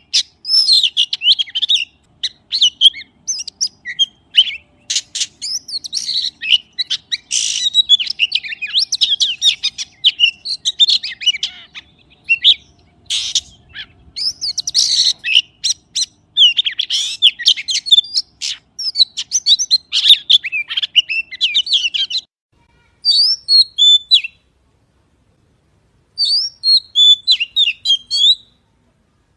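Magpie singing: a fast, continuous stream of varied chirps and warbled whistles mixed with sharp clicks, breaking off about 22 seconds in and then coming back as shorter phrases separated by pauses.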